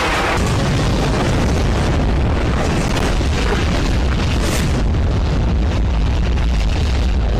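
Dramatised battle sound effects: continuous booming explosions over a background score, with a sharper blast about four and a half seconds in.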